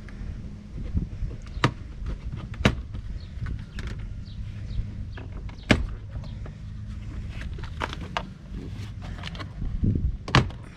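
Plastic dash trim panel being pried loose with a trim tool: scraping and several sharp clicks and snaps as its retaining clips let go, over a steady low hum.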